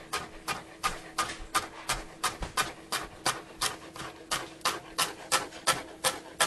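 Chef's knife slicing through rolled fresh basil and tapping the cutting board in a steady rhythm, about three cuts a second, cutting it into thin ribbons (chiffonade).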